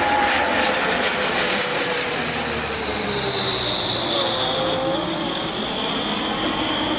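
Military transport aircraft flying past, its loud, high engine whine sliding steadily down in pitch as it passes.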